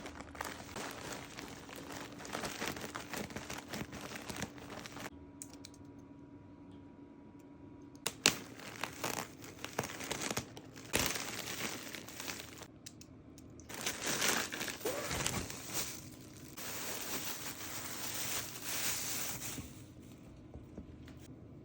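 Plastic packaging crinkling and rustling in spells as it is handled and torn open, with a few sharp clicks, the loudest about eight seconds in.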